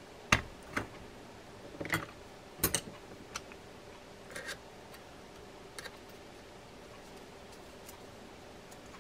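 Small metal parts of a disassembled baitcasting reel clicking and tapping as shim washers are fitted and a small screwdriver works against the frame. The sharpest clicks fall in the first three seconds, with sparser, fainter ones after.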